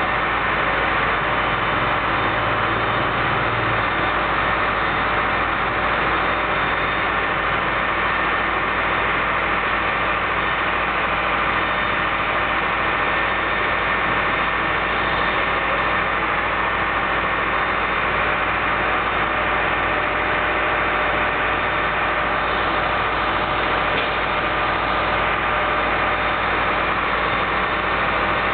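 Fire engine's engine idling steadily close by, a constant mechanical drone with no change in speed.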